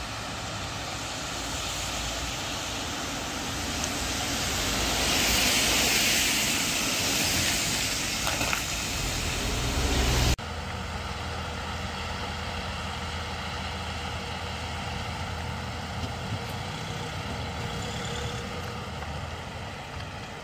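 Road vehicles on a wet road: engine and tyre noise that swells and fades as a vehicle passes about five to seven seconds in. After an abrupt cut about ten seconds in, a steady engine hum.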